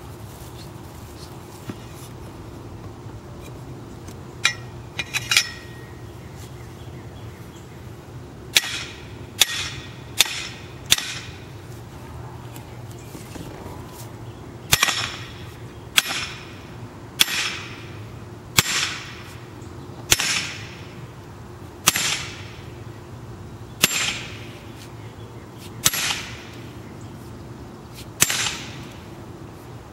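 Sledgehammer striking a driving cap on a metal fence-post sleeve, driving it into the ground: sharp metallic blows, each with a short ring. A few light taps come first, then four blows about a second apart, then nine heavier blows spaced roughly every one and a half to two seconds.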